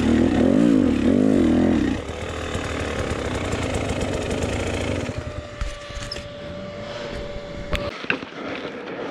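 Enduro motorcycle engine revving hard, its pitch rising and falling, for about two seconds, then easing to a lower, quieter running note. It settles into a steady idle that cuts off suddenly about eight seconds in, the engine shut off or stalled, leaving a few light clicks and knocks.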